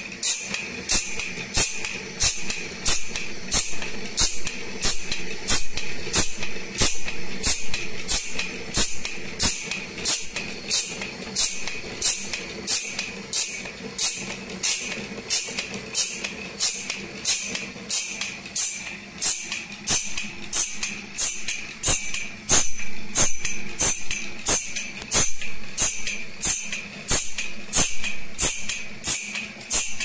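Automatic band-saw blade sharpener grinding the blade tooth by tooth: a short rasp of the abrasive wheel on steel about twice a second, in an even rhythm, over the steady hum of the grinder motor.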